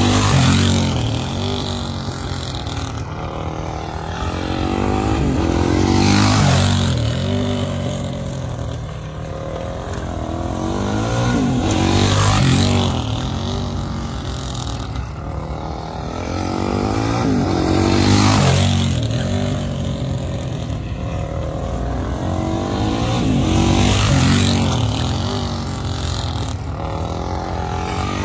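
A race motorcycle's engine lapping a tight circle at steady throttle, passing close by five times about every six seconds. Each pass swells in loudness and the engine note drops in pitch as it goes by, then fades while the bike is on the far side of the circle.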